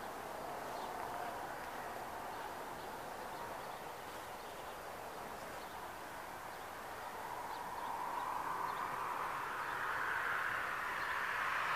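Outdoor ambience with a steady hiss, and from about two-thirds of the way in, the noise of a passing road vehicle swelling and growing louder toward the end.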